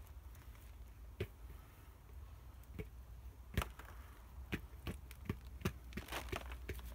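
Hands sifting potting compost and shaking soil from a potato plant's root clump over a plastic sheet: a scatter of light, irregular taps and knocks as soil and small potatoes drop. The taps come more often in the second half, the sharpest one about halfway through.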